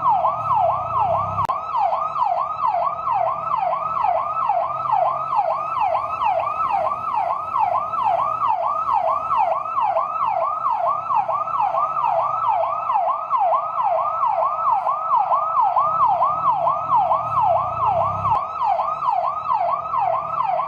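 Fire truck siren in yelp mode: a loud tone sweeping rapidly up and down, about two and a half cycles a second, steady throughout, with a faint low rumble beneath. It cuts off abruptly at the end.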